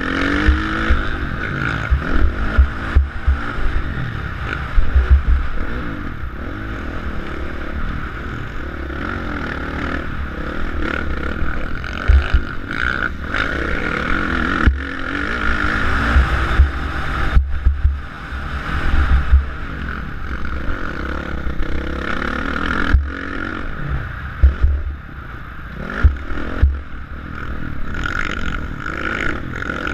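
Motocross bike engine revving hard and backing off as the rider accelerates and shifts around the track, heard from a helmet-mounted camera, with wind buffeting the microphone and occasional clatter from bumps and landings.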